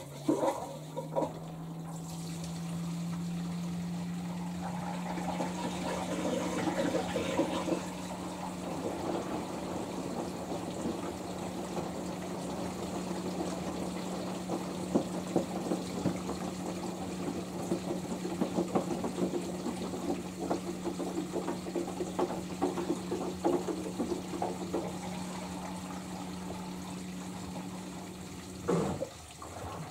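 Washing machine drain pump humming steadily while the rinse water drains out with a gurgling, splashing noise, at the start of an interim spin. The hum rises slightly in its first two seconds and cuts off about a second before the end.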